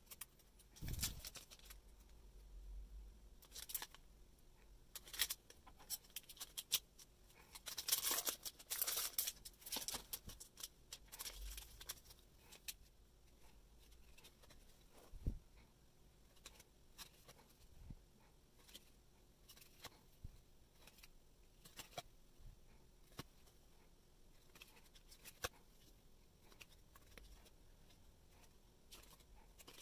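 Hands handling foil trading cards and punch-out cardboard tokens: scattered small clicks and taps, with a denser stretch of crinkly rustling about eight to eleven seconds in.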